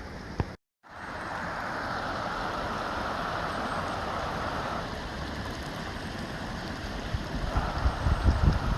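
Steady rush of water spraying from garden-bed watering heads, easing a little about halfway through. Wind buffets the microphone near the end.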